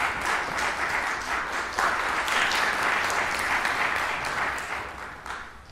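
Audience applauding in a concert hall, with many close-set claps, dying away near the end.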